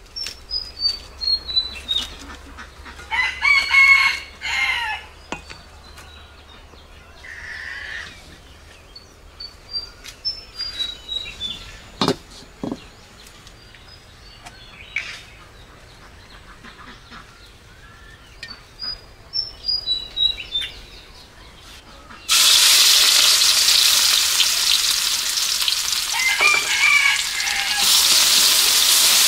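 A rooster crows and a small bird repeats short, high, descending chirping phrases over a quiet yard, with a couple of sharp knocks midway. About 22 seconds in, chopped food drops into a hot wok and starts sizzling loudly, frying steadily as it is stirred.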